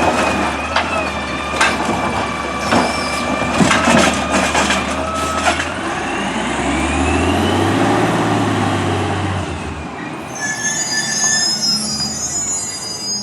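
Autocar ACX side-loader garbage truck with a Heil Rapid Rail arm: the engine runs with a steady high whine while the arm and cart clank several times. About six seconds in, the engine revs up for a few seconds, and near the end there are high squeals.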